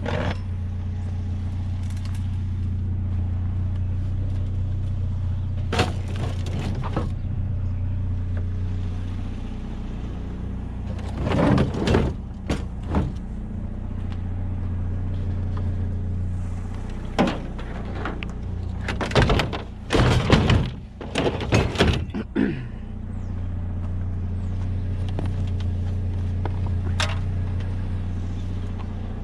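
Idling pickup truck engine with a steady low hum, under bursts of clanks and thumps from metal scrap being handled and loaded. The thumps come in a few clusters, loudest about halfway through.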